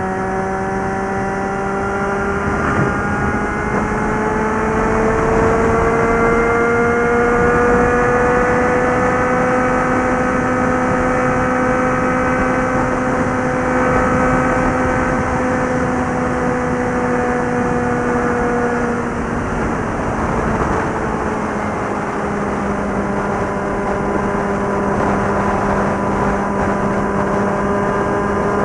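Suzuki GSX650F's inline-four engine and exhaust running at highway speed, with wind and road rush. The engine note climbs slowly over the first ten seconds, holds, then drops a little about twenty seconds in as the throttle eases.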